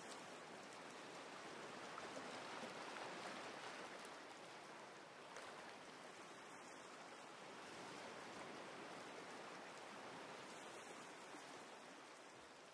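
Faint, steady rushing noise with slow swells in loudness, starting to taper away near the end.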